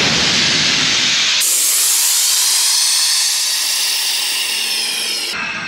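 Compressed air hissing out of an opened bleed valve on the air compressor's outlet fitting, releasing the pressure left in the hose and sprinkler lines. The hiss weakens near the end as the pressure drops.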